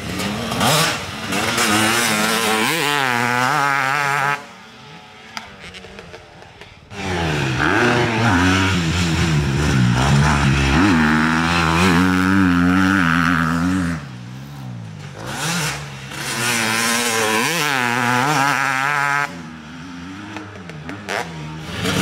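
Motocross dirt bikes revving hard, the engine pitch climbing and dropping again and again through the gears as they ride the track. The sound falls away briefly three times, as the bikes move off or close the throttle.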